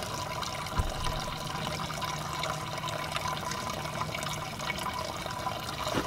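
Diesel fuel draining out of a Ford 1910 tractor's fuel system, trickling and splashing steadily into a plastic bag tied around the fuel filter; it is the tank being flushed of old, dirty fuel. A light knock just under a second in.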